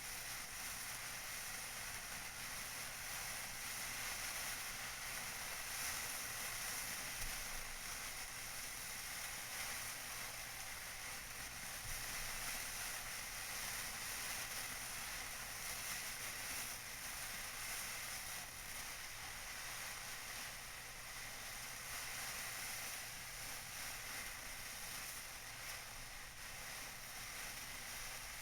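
Tissue paper being crinkled and rustled continuously by hand close to the microphone, with a dense, steady crackle.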